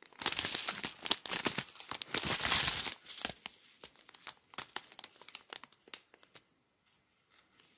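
Clear plastic zip bags of diamond painting drills crinkling as they are handled. The crinkling is busiest for the first three seconds, thins to scattered crackles, and stops about six seconds in.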